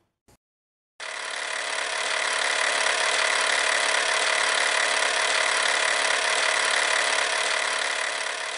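A steady, unbroken machine-like buzzing noise that starts abruptly about a second in and holds at one level, fading out near the end.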